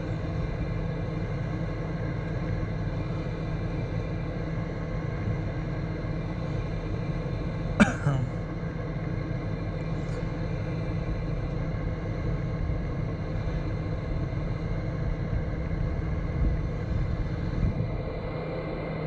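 Vehicle engine idling steadily, a low, even rumble, with a single sharp click about eight seconds in.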